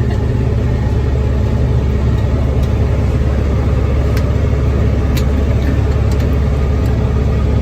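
Tractor engine running steadily under load while pulling a small square baler, with a few sharp clicks from the baler's working parts.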